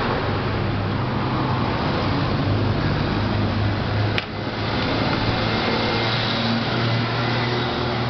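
Steady background hum with an even rushing noise, like a running fan or distant traffic, with a brief click about four seconds in.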